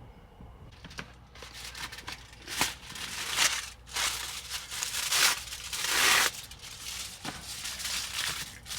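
Crinkling and tearing noises in a series of hissing bursts, the kind made by handling packaging or paper.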